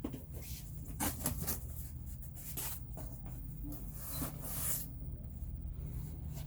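Paper and packaging being handled: short rustles and a few soft clicks as canvas lithograph prints are shuffled and moved, over a steady low room hum.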